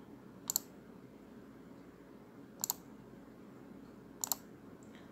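Clicks of a computer pointer button: three pairs of sharp clicks, each a quick press and release, spaced about two seconds apart, over faint room tone.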